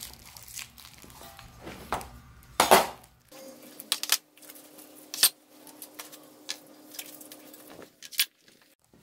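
Bent steel frame tubes of a minibike kit clinking and knocking against each other as they are handled and set down, a handful of sharp metallic knocks with the loudest about two and a half seconds in.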